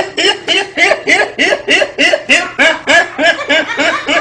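A person laughing in a rapid, rhythmic run of short "ha" bursts, about four a second, as in a meme laughing sound effect.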